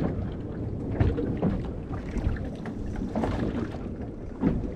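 Wind buffeting the microphone over water moving against the hull of a small drifting boat, with a few soft knocks.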